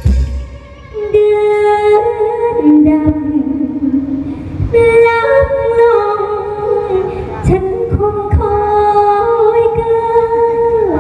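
A woman singing a slow melody in long held notes that step from pitch to pitch, with musical accompaniment and a few sharp percussive hits.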